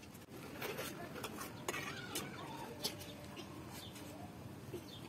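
Small wood fire crackling in a cement stove under a pot, with scattered sharp pops and clicks, and a few short animal calls in the background.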